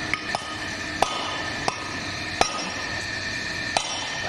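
Hammer blows on the steel drum brake shoes and their lining rivets: five sharp metallic strikes, each with a short ring, about one every 0.7 seconds with one longer pause.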